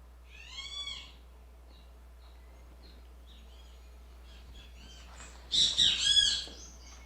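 Great kiskadee (bem-te-vi) calling: one call about half a second in, softer chirps after it, then a loud burst of calls near the end.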